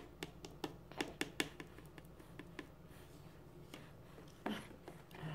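Faint, light clicks and taps, a quick run of them in the first two seconds and a few more after, with a brief voice sound about four and a half seconds in.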